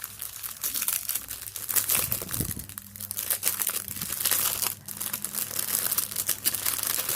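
Plastic bags of diamond painting drills crinkling and rustling as they are handled and unfolded, a dense, continuous crackle.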